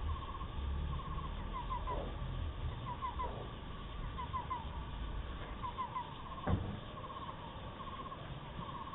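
Repeated short chirping calls, in quick little trains every half second or so, over a low steady rumble. A single sharp knock comes about six and a half seconds in.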